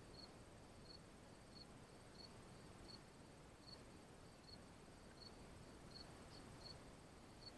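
Faint cricket chirping: short high chirps evenly repeated about one and a half times a second.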